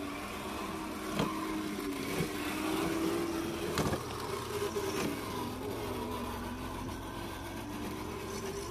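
RC scale crawler truck's electric motor and geared drivetrain whining, the pitch wandering slowly up and down as the throttle changes. A few sharp clicks sound about one, two and four seconds in.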